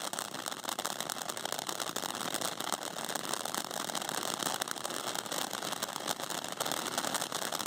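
Clown novelty firework crackling on the ground: a dense, steady run of rapid clicks and crackles.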